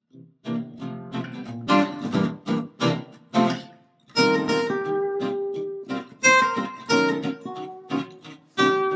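Intro music: guitar strumming chords, with a brief pause about four seconds in.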